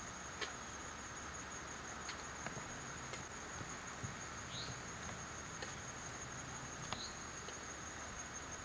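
Crickets trilling steadily in one high, unbroken tone, with a few faint clicks and short high chirps.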